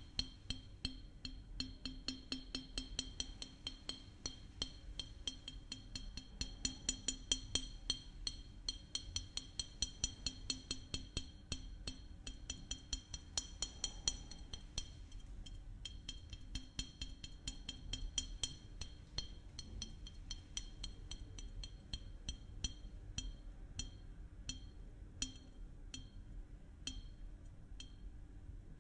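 Small glass maple syrup bottle tapped rapidly, each tap ringing at a few steady pitches like a chime. The taps come thick and fast, then thin out to slower, separate taps near the end.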